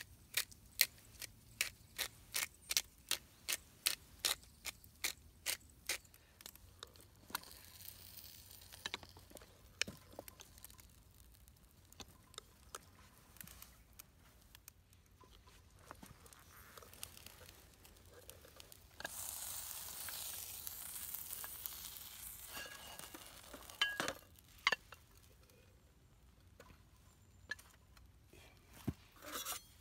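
A hand-turned pepper grinder clicks steadily, about two or three turns a second, for the first six seconds. Then a sandwich sizzles in a hot sandwich maker over a wood fire, with a louder stretch of sizzling hiss a few seconds long past the middle, and a couple of sharp knocks after it.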